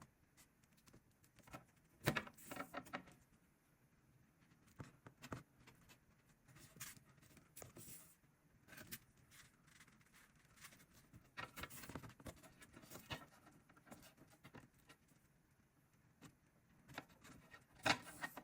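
Faint, intermittent rustling and small clicks from craft materials being handled, with a sharper crackle about two seconds in and another near the end.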